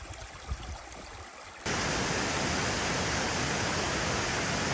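Fast-flowing mountain water rushing steadily. It cuts in abruptly about a second and a half in. Before that there is only a faint outdoor hiss with a few low thumps.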